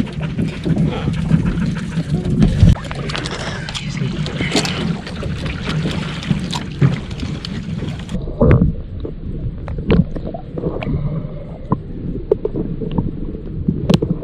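Small aluminium boat under way: an outboard motor running under a constant noise of water and wind, with knocks from the hull through the chop. About halfway through the sound turns duller.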